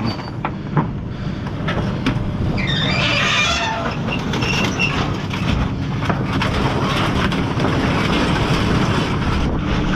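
Steady, loud mechanical rumble with rattling and clanking.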